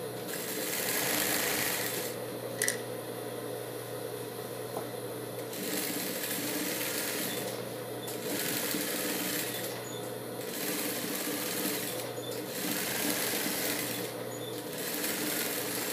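Industrial straight-stitch sewing machine stitching a satin ribbon onto cotton fabric in about six short runs, stopping and starting as the fabric is guided, with its motor humming steadily between runs. One sharp click about two and a half seconds in.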